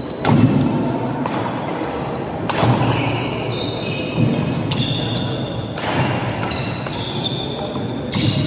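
Badminton doubles rally: rackets strike the shuttlecock with sharp smacks about every one to two seconds, with shoes squeaking on the wooden court floor between the shots.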